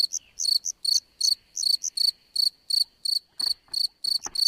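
An insect chirping, a string of short, high, evenly pitched chirps at roughly four a second.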